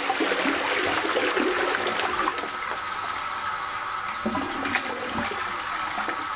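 Toilet flushing: a rush of water that slowly eases off, with a steady high whine joining in about halfway through.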